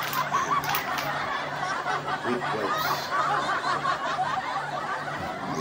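Several people's voices in the background, chattering and laughing over one another.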